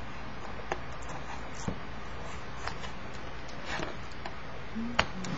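Knife cutting into a package: scattered light clicks and scratches, about one a second, with a sharper click near the end, over a steady background hiss.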